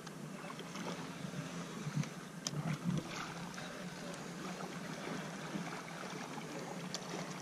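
Faint water noise with scattered clicks and knocks of a rod and spinning reel as a hooked bullhead is reeled in.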